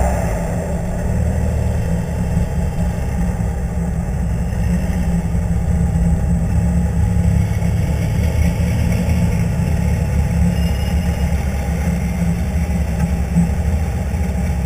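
Mitsubishi Lancer Evolution IX's turbocharged four-cylinder with a cam and exhaust upgrade, idling and rolling at low speed with a steady low rumble.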